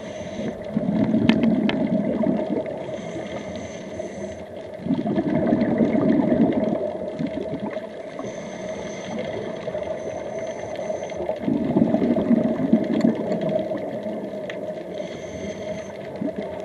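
Scuba diver breathing through a regulator underwater. There are three loud rushes of exhaled bubbles, each about two seconds long, with a softer hiss of inhalation through the regulator between them. A few sharp clicks come early on.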